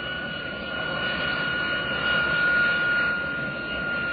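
Jet engines of the experimental Buran atmospheric test craft running steadily: a constant rushing noise with a high whine held at one pitch.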